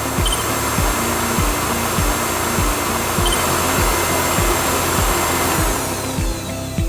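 High-speed hair dryer running: a rush of air with a steady high-pitched motor whine. Near the end the rush fades and the whine falls in pitch as the motor winds down.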